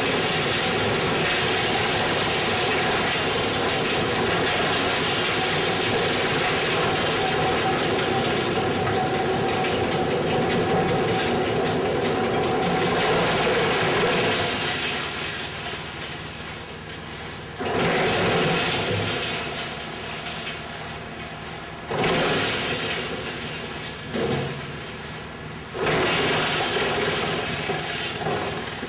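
Wood chipper running and chipping branches and small logs drawn in by its spiked feed roller. The loud chipping noise eases about halfway through, then comes back in several sudden surges as fresh wood is fed.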